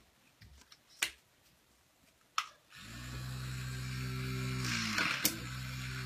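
Small battery-powered handheld fan switched on about three seconds in, after two sharp clicks. It then runs with a steady motor hum and a hiss of air. Its pitch sags briefly about five seconds in, with a click, then recovers.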